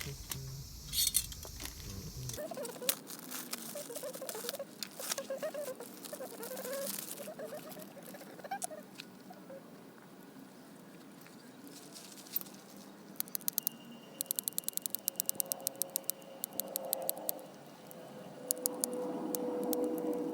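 Wood fire crackling and popping, with scattered sharp clicks and a quick run of clicks about two thirds of the way through.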